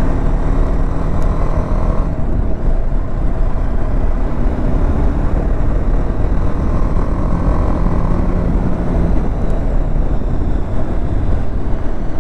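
A BMW sport motorcycle's engine running at steady cruising speed, under heavy wind rush on the rider's microphone.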